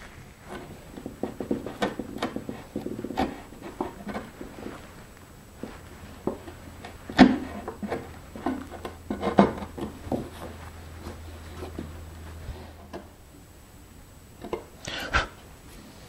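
Bench chisel paring wood out of a lock mortise by hand: a run of short, irregular scraping cuts and clicks, the sharpest about seven and nine seconds in.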